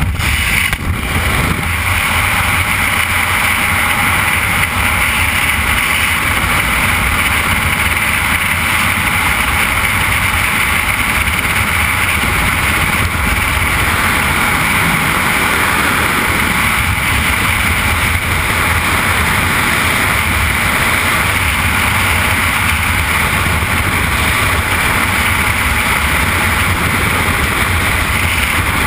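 Freefall wind rushing over a camera microphone, a loud steady rush with a constant hiss and low buffeting. It builds over the first second after the jump from the aircraft door.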